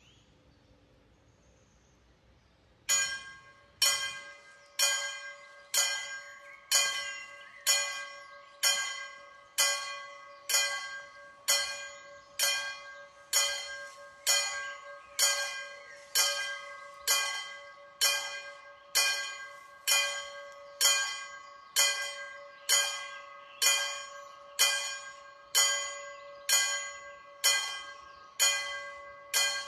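Mechanical level-crossing warning bell (DSI type) starting about three seconds in and striking steadily about once a second, each stroke ringing out and fading before the next: the crossing's alarm that a train is approaching.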